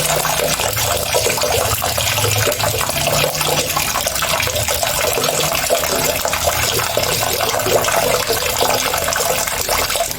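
Steady rush of running water, even and unbroken, like water pouring from a tap.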